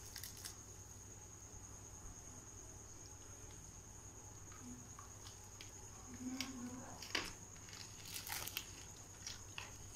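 Faint handling of food on a steel plate: fried chicken pakora being pulled apart, a lemon wedge squeezed and raw onion rings picked up, giving a few soft crinkles and sharp little clicks, most of them in the second half. A steady high-pitched whine runs underneath.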